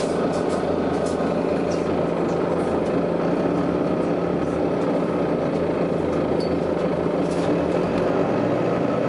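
Volvo B9TL double-decker bus's diesel engine running steadily, with a few faint brief clicks or rattles over it.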